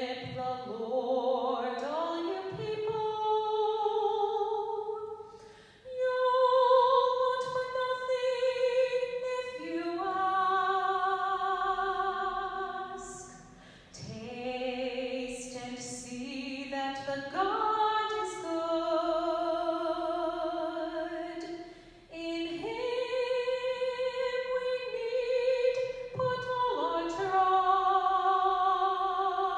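A woman cantor singing solo, a sung psalm in a slow chant-like melody: long held notes with vibrato, in phrases of several seconds separated by short breaths.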